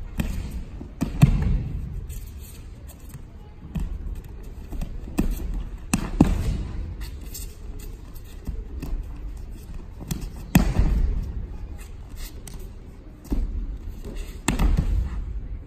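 Aikido breakfalls: bodies slamming down onto tatami mats as partners are thrown, four heavy thuds about four seconds apart with lighter knocks between.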